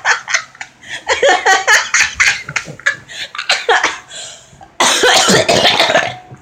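A person coughing and laughing in short, broken bursts, then a loud, harsh cough lasting over a second near the end.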